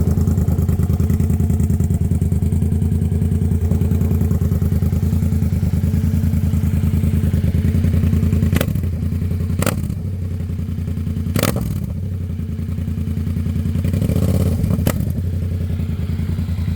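Yamaha MT-07's crossplane parallel-twin engine idling steadily with an even, pulsing exhaust note. A few sharp knocks come through in the second half.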